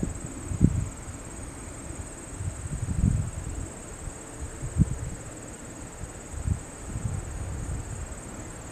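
Steady high-pitched chirring of insects, a cricket-like chorus, with a few irregular low thumps about half a second, three and five seconds in.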